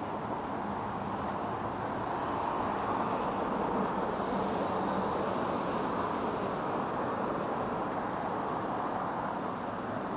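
Road traffic passing on a city street: a steady rush of engine and tyre noise that swells over the first few seconds and eases off toward the end.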